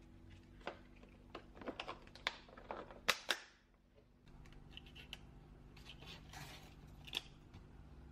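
Light clicks and taps of objects being handled on a countertop, with the two sharpest a little after three seconds. Softer handling noise and one more click near the end, over a faint steady hum.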